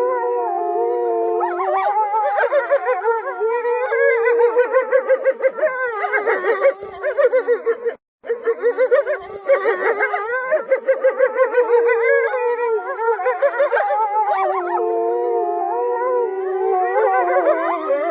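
A chorus of wolves howling: several long overlapping howls held on different pitches, with two stretches of quick wavering yips in between. The sound cuts out for an instant about halfway through.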